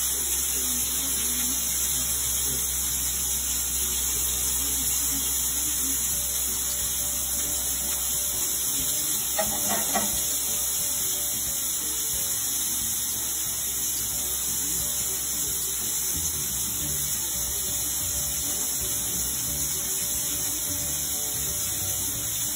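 Shrimp skewers sizzling in olive oil in a hot grill pan, a steady hiss, under background music. A few quick clicks about ten seconds in.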